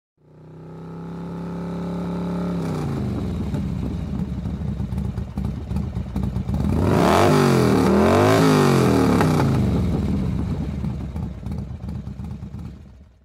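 Motorcycle engine running, fading in at a steady note and then revved up and down a few times around the middle, the loudest part, before fading out.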